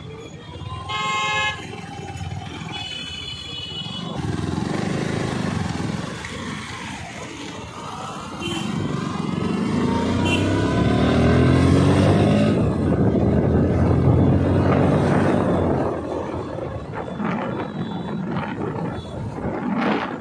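Street traffic heard from a moving two-wheeler: a short vehicle horn honk about a second in and a second, higher horn around three seconds, then engine noise that swells and rises in pitch as a motor vehicle accelerates, loudest near the middle.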